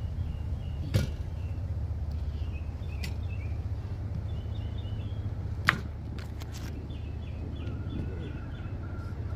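Birds chirping in short repeated phrases over a steady low rumble, with two sharp knocks, one about a second in and one past the middle.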